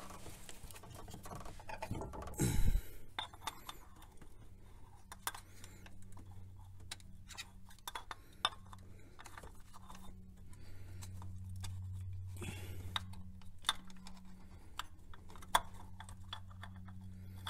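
Scattered light clicks and taps of a replacement automatic transmission filter and its housing parts being handled and pushed into place by hand, with a louder bump about two and a half seconds in. A steady low hum runs underneath.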